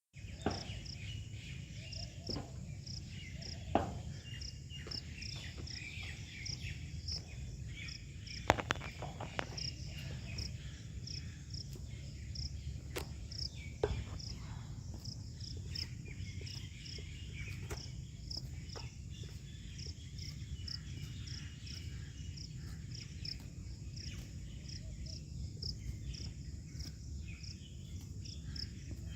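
Insects chirping steadily, a high, evenly repeated chirp about twice a second, over a constant low rumble, with a few sharp clicks in the first half.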